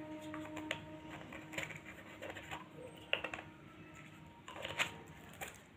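Light, scattered clicks and rustles of small plastic bottles and screw caps being handled on a table, a handful of separate taps about a second apart.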